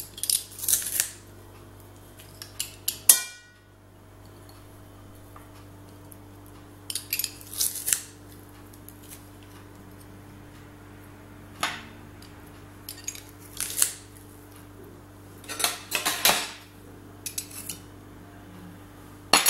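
Metal garlic press squeezing garlic cloves, with scattered metallic clicks and clinks of the press and a knife scraping it against an enamel bowl; one clink about three seconds in rings briefly.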